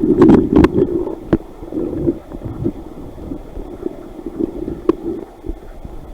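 Creek water sloshing and gurgling as the creek-bottom hole is dug and searched by hand, with several sharp knocks in the first second and a couple more later.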